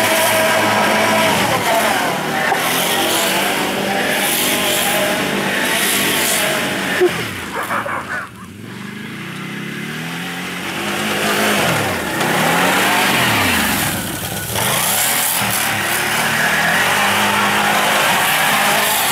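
ATV engine revving hard, its pitch rising and falling over and over as the quad spins on snow and ice. About seven seconds in there is a brief sharp sound, then the engine eases off for a couple of seconds before revving up again.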